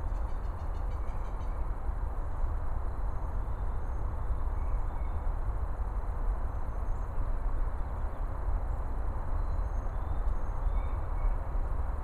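Steady low rumble and hiss of outdoor background noise, even throughout, with a few faint high chirps here and there.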